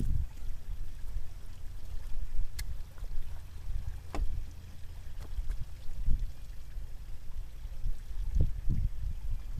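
Uneven low outdoor rumble that swells and eases, with a few faint clicks about two and a half and four seconds in.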